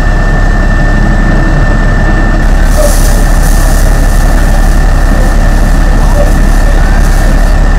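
A vehicle engine idling loudly and steadily, with a thin steady whine above it; the hiss grows brighter and a little louder about two and a half seconds in.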